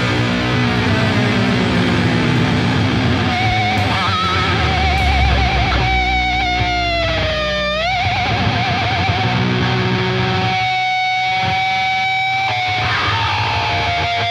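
Heavy metal song played by a band with electric guitars and drums, a lead line holding long wavering notes, with one deep bend down and back up about eight seconds in.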